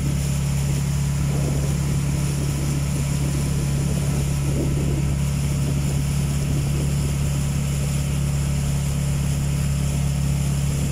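Engine of a small wooden motorboat running steadily under way, a constant low drone that does not change pitch.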